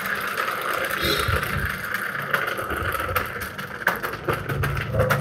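Small plastic-spoked wheel with a rubber tyre spinning fast while hanging from a thread on its axle: a steady whir, with sharp rattling clicks coming in about four seconds in and growing more frequent.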